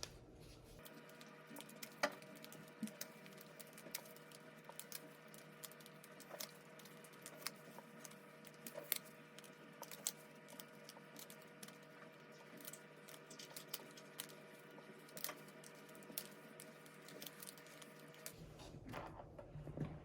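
Faint, irregular small clicks and taps over a steady low electrical hum.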